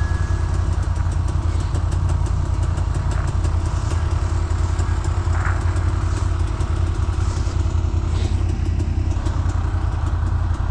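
ATV (quad) engine running steadily at idle, its low hum even throughout with no revving.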